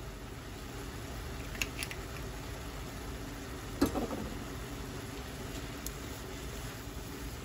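Steady low hum of a kitchen fan over a pan of steaming stir-fry. There are a few light clicks about a second and a half in, and one sharp knock about four seconds in.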